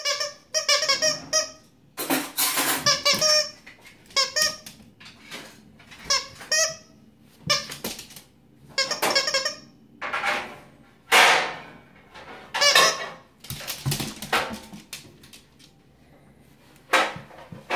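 Plush squeaky toy squeaked over and over in quick runs of several squeaks each, with short pauses between the runs; one squeak about ten seconds in slides down in pitch.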